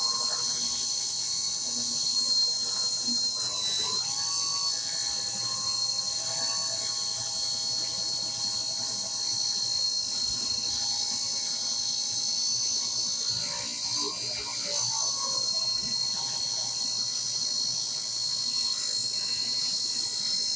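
Craftsman 113.226680 contractor table saw ripping a poplar hardwood board lengthwise, its motor and blade running with a steady high whine. The pitch sags briefly about 4 seconds in and again near the middle as the dense wood loads the under-powered motor, which is struggling to keep up with the cut.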